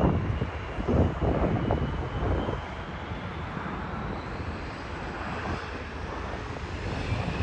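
Jet airliner's engines as the plane comes in to land and rolls out: a continuous jet rumble with a faint high whine, loudest in the first two or three seconds, then easing.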